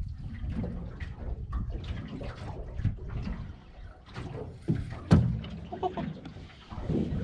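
Water slapping and sloshing against a small boat's hull, with scattered knocks and clicks of gear on deck; one sharp knock about five seconds in.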